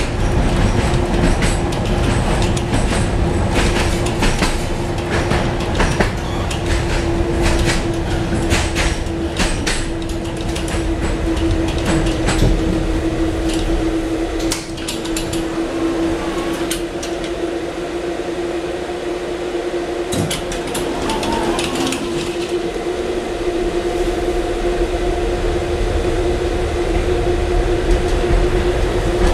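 Tatra T4D tram with a B4D trailer running along the track, with a steady hum and the wheels clicking and clacking on the rails. The clacks come thick in the first half and thin out after the middle.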